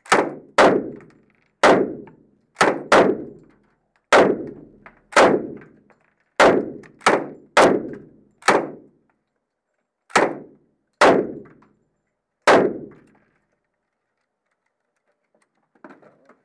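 About fourteen single gunshots from a firearm fired in quick semi-automatic succession, roughly half a second to a second and a half apart, each with a short echoing tail. The shooting stops about three-quarters of the way through.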